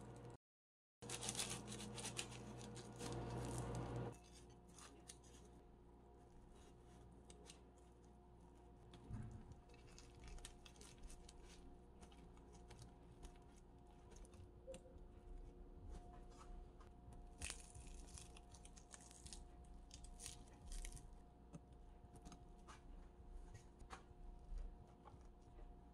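A knife sawing through crisp croissants for the first few seconds, the flaky pastry crackling and crumbling. After that, only faint scattered clicks and scrapes of chopsticks and cutlery handling the filling.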